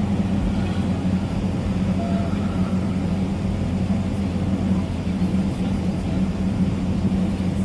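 Range Rover engine idling steadily, a low even hum that is a little loud, heard from the driver's seat with the doors open.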